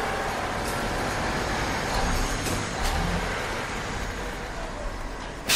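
Steady rumble and hiss of a truck running, with a few faint clanks and a sudden loud crash at the very end.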